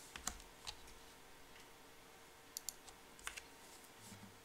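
Near silence: room tone with a faint steady hum and a few faint, short clicks, three in the first second, two close together past the middle, one more soon after.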